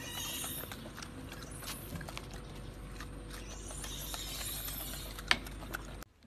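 Golden snub-nosed monkey eating fruit: soft, scattered chewing and mouth clicks over a low background hum, with one sharper click about five seconds in.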